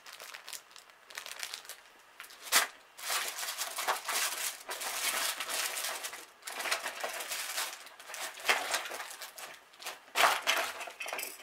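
Plastic packaging crinkling and rustling in irregular bursts as toys are handled and rummaged through in a plastic storage box, with a couple of sharper knocks.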